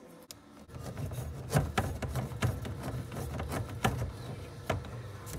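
Hands working at a garbage disposal's metal mounting ring under a kitchen sink: rubbing and handling noise with irregular clicks and knocks, starting about a second in.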